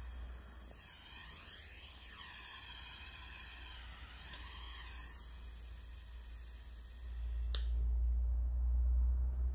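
Oxy-fuel gas brazing torch flame hissing, its tone sweeping up and down as the lit torch is swung about. About seven and a half seconds in, a sharp pop as the flame is shut off; the hiss dies away, leaving a low hum.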